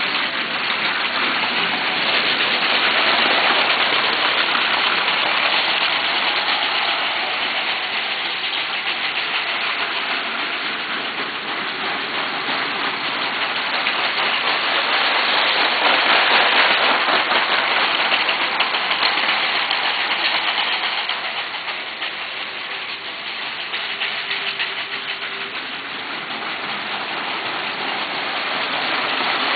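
Lego 12-volt model trains running on plastic track: a continuous whirring rattle of small motors and wheels that grows louder and softer as the trains pass.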